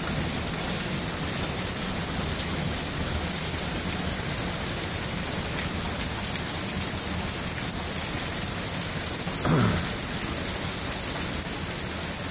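Heavy downpour with water spilling over the top of the gutters and splashing down: a steady rushing hiss of rain. About three-quarters of the way through, a brief sound falls sharply in pitch.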